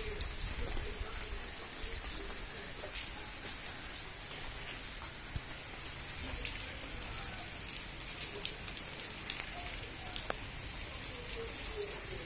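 Steady rain falling, with many individual drops striking nearby as small sharp ticks.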